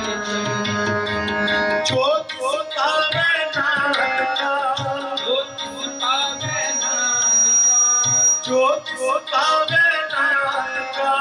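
Sikh kirtan: harmoniums and tabla playing, with a singer's voice over them. It opens on a held harmonium chord for about two seconds, then moves into a melody while the tabla keeps a steady beat of low strokes about once a second.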